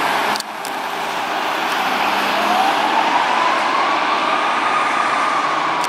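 Fire engine's Federal Q2B mechanical siren winding up: a single tone rising slowly from about two seconds in, then holding high. Underneath is the steady hiss of traffic tyres on the wet road.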